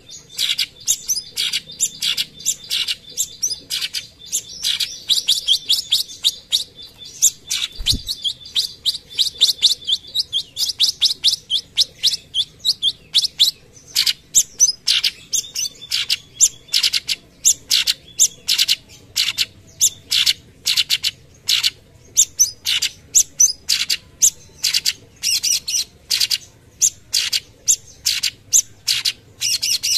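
Cucak cungkok, a leafbird, singing a long unbroken run of short, sharp chirping notes, several a second: the rapid-fire 'tembakan' song. A single low thump sounds about eight seconds in.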